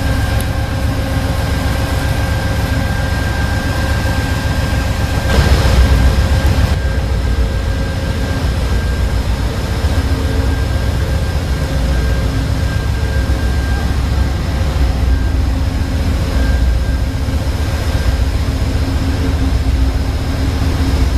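Amtrak GE P42DC Genesis diesel-electric locomotive running while standing at the platform: a steady low rumble with several constant whining tones over it. About five seconds in, a louder rush of noise lasts just over a second.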